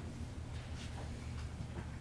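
Room tone of a large hearing room: a steady low hum with a few faint small knocks and rustles.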